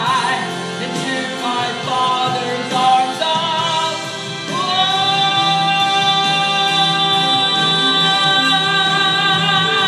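A woman singing a slow gospel song with accompaniment; about halfway through, one long note is held to the end.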